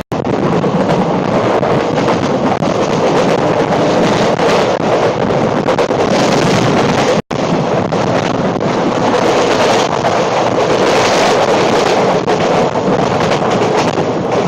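Passenger train running at speed, a steady rush of wheel and track noise with wind buffeting the microphone. It cuts out for an instant about halfway through.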